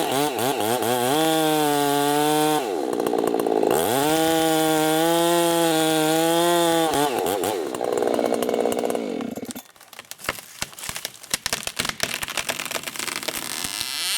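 Chainsaw running at high revs, its pitch dipping and recovering three times. It cuts off about two-thirds through, and a run of sharp crackling snaps follows.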